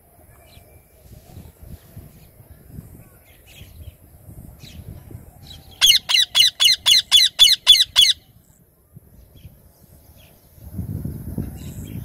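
Rose-ringed (Indian ringneck) parakeet calling a quick series of about nine shrill screeches, about four a second, some six seconds in. A low rumble comes in near the end.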